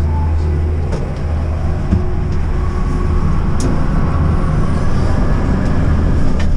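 Enclosed ski-lift cabin running through the lift station: a steady low rumble and hum of the cabin and lift machinery, with a few clicks and a faint whine in the middle.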